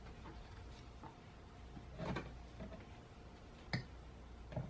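Quiet handling sounds of a glass teapot being moved onto a cloth towel: a soft rustle about two seconds in, then two light, sharp clicks near the end.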